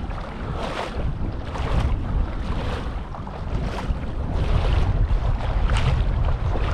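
Strong wind buffeting the microphone in a heavy low rumble, with water splashing and lapping about once a second.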